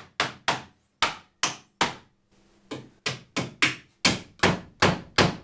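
Hammer driving drywall nails through the thin steel flange of a corner bead: about a dozen sharp strikes, two to three a second, with a short pause about two seconds in.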